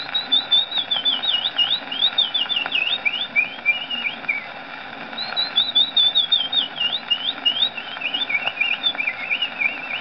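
A man's whistled imitation of a willow warbler's song, played from a record on a horn gramophone: two phrases of quick notes warbled on a descending scale, the second starting about five seconds in, over steady record surface noise.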